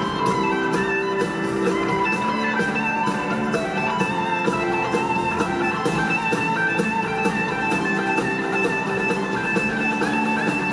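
Live rock band playing an instrumental passage: electric guitars with long held notes over drums keeping a steady beat.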